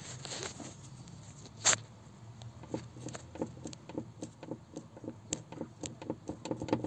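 A run of small, irregular clicks and knocks, with one sharper click about a second and a half in, as a GAZelle Sobol's clutch pedal is worked up and down by hand, moving the clutch master cylinder pushrod.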